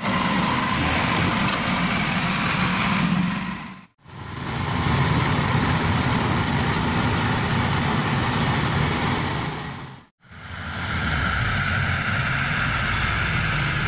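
Steady engine noise from a crawler rice combine harvester and the small truck that carries it, broken twice by brief silent gaps about four and ten seconds in.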